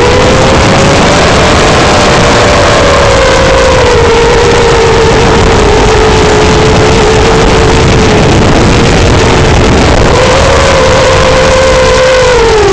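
iFlight Nazgul5 five-inch FPV quadcopter in flight, its motors and propellers whining loudly over a steady rushing noise. The pitch wanders up and down with throttle and drops sharply near the end.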